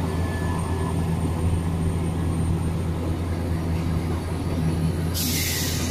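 Diesel multiple unit's underfloor engines running with a steady low hum. Near the end comes a short, loud hiss of compressed air.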